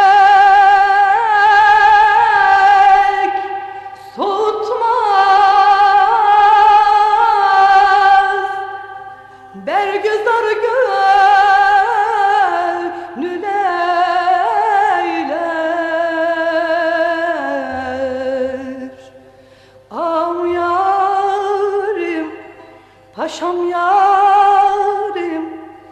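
Woman singing a Turkish folk song (türkü) in long, ornamented phrases with wide vibrato, scooping up into each phrase, with short breaks between the phrases.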